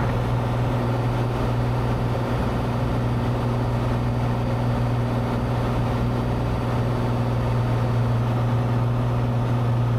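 Cessna 182's piston engine and propeller droning steadily in flight, a constant low hum that holds one pitch throughout.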